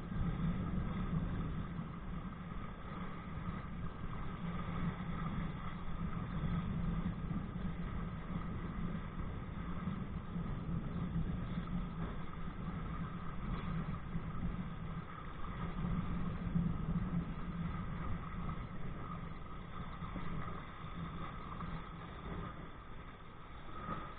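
Steady, muffled rumbling and rushing of wind and water against a kite-pulled kayak, picked up by a body-worn camera.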